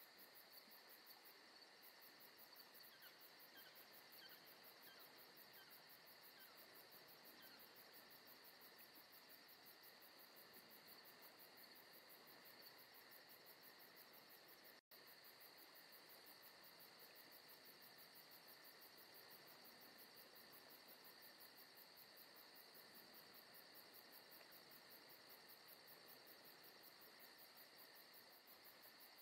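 Faint, steady chirping of an outdoor insect chorus, with a brief dropout about halfway through.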